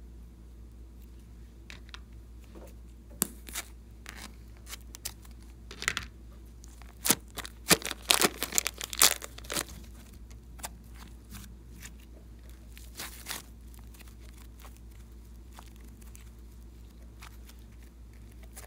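Slime being squished and mixed by hand, giving sharp sticky crackles and pops. They come sparsely at first, bunch into a dense run of loud crackles in the middle, then thin out.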